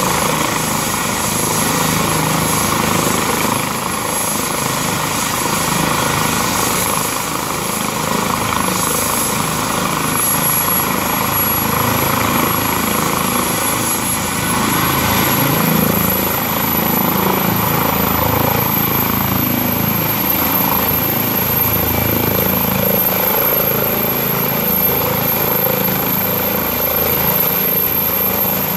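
Airbus EC135 air ambulance helicopter's twin turbines and rotor running steadily and loudly on the ground. A high turbine whine rises in pitch about halfway through as power comes up for take-off, and the helicopter lifts off near the end.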